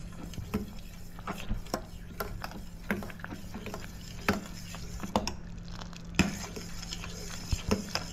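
A metal ladle stirring sago grains in water in a stainless steel pot, clinking and scraping against the pot's sides and bottom at uneven intervals over a steady low hum. The stirring keeps the sago from settling and catching on the bottom as it cooks.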